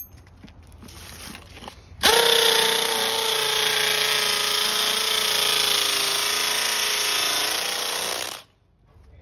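Makita hammer drill boring deeper into a concrete slab for an anchor-bolt hole. It starts abruptly about two seconds in, runs steadily under load for about six seconds with a held motor whine, then winds down quickly near the end.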